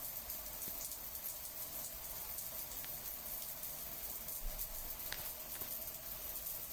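Natural running water making a steady, even hiss, with an occasional faint drip or tick.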